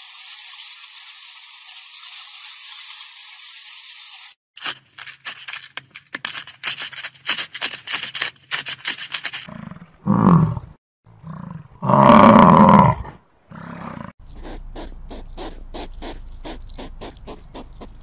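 A run of different animal sounds: a steady high hiss, then rapid clicking, then two loud, low grunting calls from a bison about ten and twelve seconds in, the loudest sound here. Fast, even clicking follows.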